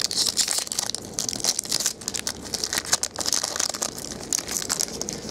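Foil trading card pack wrapper being torn open and crinkled by hand: a dense, continuous run of sharp crackles and crinkles.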